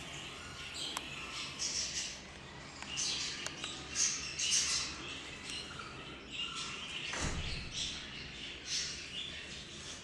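Birds in zoo aviaries chirping and calling, many short high chirps and squawks following one another. A brief low thud comes about seven seconds in.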